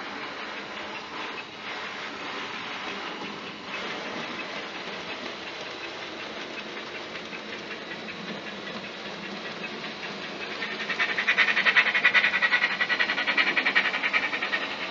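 Bachmann Double Fairlie model steam locomotive's DCC sound decoder playing steam sounds through its small speaker: a steady hiss, then from about ten seconds in, louder rapid chuffing as the model comes close.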